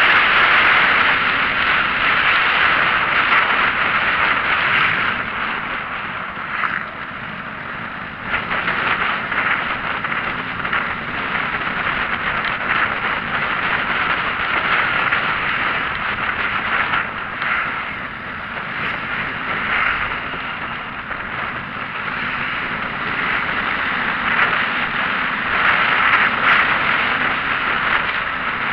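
Steady road and wind noise of a moving vehicle, easing a little about seven seconds in and rising again.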